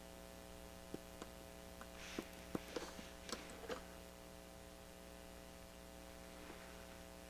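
Steady low mains hum with a scattering of light clicks and taps between about one and four seconds in, as test probes are touched to the test pads of an LED TV's backlight strip.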